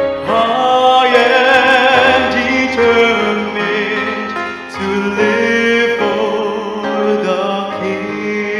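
Man singing a gospel hymn into a microphone, holding notes with vibrato, over instrumental accompaniment.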